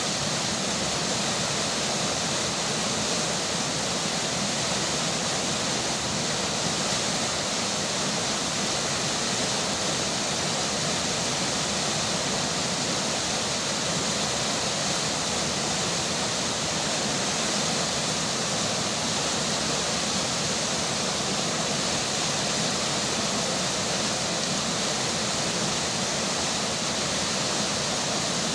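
River water flowing with rain falling, a steady, even rush of water that does not change.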